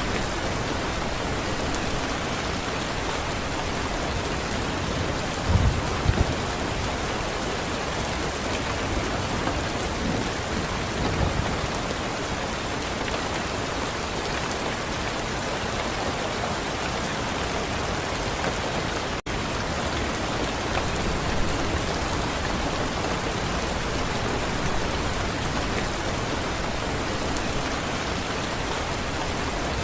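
Steady, heavy rain falling, a dense even hiss of drops on surfaces. Brief low rumbles of thunder rise under it about six seconds in and again about eleven seconds in, and the sound drops out for a split second about two-thirds of the way through.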